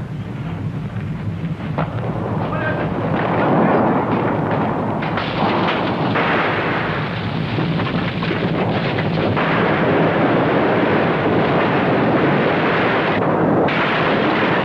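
Sound effect of an earthquake striking a building: a deep, loud rumble that builds over the first few seconds and then holds steady, with many cracks and crashes of falling plaster and debris early on.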